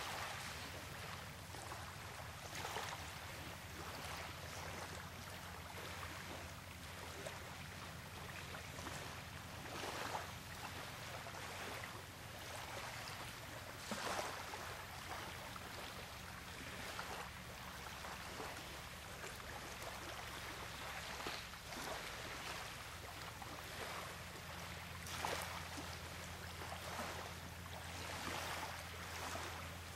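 Bald eagle tearing at raw salmon with its bill: short soft ripping sounds every few seconds over a steady background hiss and low hum.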